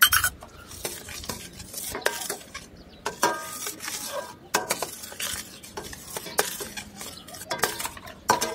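A flat steel spatula stirring milk in a stainless-steel kadhai, scraping and clinking irregularly against the pan's bottom and sides, some clinks ringing briefly. The continuous stirring keeps the thickening milk from sticking to the bottom.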